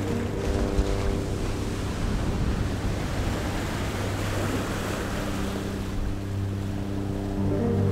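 Background music: a sustained synth drone with a whooshing swell of noise in the middle that sounds like surf, fading about five seconds in as the held notes return.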